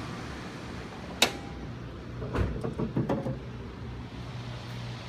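The hood of a GMC Yukon being unlatched, with one sharp click about a second in, then a few clunks and knocks as it is lifted open, over a steady low hum.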